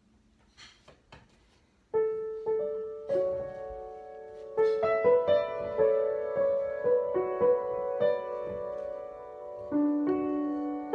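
Upright piano played solo: single notes and chords struck and left ringing, a slow melody over held lower notes, starting about two seconds in after a few faint clicks.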